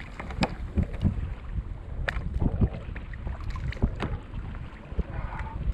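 Wind rumbling on the microphone aboard a fishing kayak, with irregular knocks and thumps on the kayak and its gear as a big red snapper is handled at its side.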